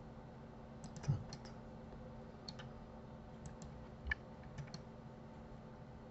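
Scattered clicks of a computer keyboard and mouse as hotkeys are pressed and the mouse is worked, over a faint steady hum.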